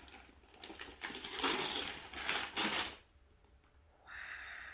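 Gift-wrapping paper rustling and tearing in bursts as a present is unwrapped by hand, with a short pause about three seconds in.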